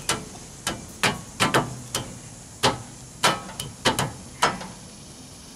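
Hammer blows on a steel bumper, driving it onto the Jeep's frame rails: about ten sharp strikes at roughly two a second, stopping near the end.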